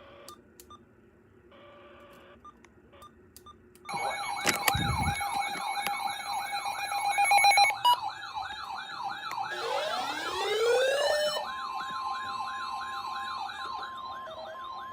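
An alert broadcast's electronic siren tone begins about four seconds in, sweeping up and down about two to three times a second. Other siren tones are layered on it: one rises in pitch about ten seconds in, and a steady tone joins soon after. It all stops suddenly at the end. Before the siren there is a short burst of chirping alert data tones.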